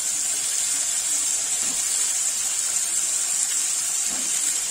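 Oil sizzling in a kadhai as raw potato cubes fry with onion and spices: a steady, high-pitched sizzling hiss.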